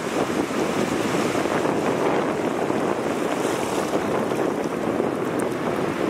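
Sea surf breaking and washing in over a sandy beach: a steady, even rush of water without pauses.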